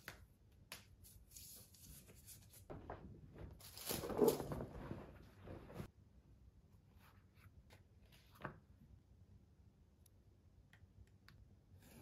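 Hands handling and flexing stiff pieces of old black leather steering-wheel cover on a sheet of Alcantara: a rustling, rubbing swell about four seconds in that stops suddenly near the middle, with scattered light clicks and taps around it.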